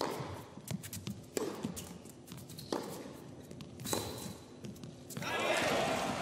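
Tennis rally: racket strikes on the ball about every second and a half, with lighter ball bounces between them. About five seconds in, the crowd breaks into applause and cheering as the point ends.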